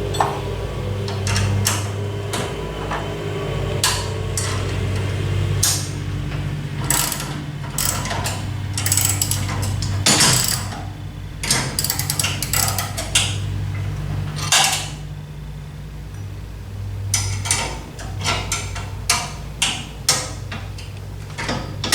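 A wrench tightening a nut on a garage door's bolt, with irregular clusters of metal clicks and clanks over a steady low hum.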